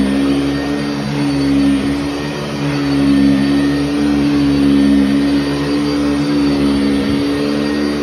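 Sanitaire SC679 commercial upright vacuum cleaner, fitted with a Vibra-Groomer II brush roll, running over carpet: a steady motor hum with a strong low tone that swells and dips slightly as it is pushed back and forth.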